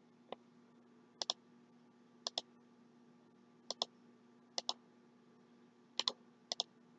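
Computer mouse button clicking, about seven times at uneven intervals, most clicks heard as a quick double tick, over a faint steady hum.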